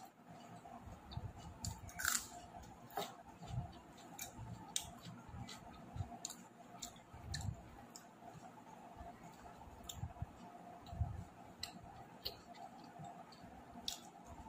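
A person eating: chewing with irregular wet mouth clicks and smacks, over a faint steady hum.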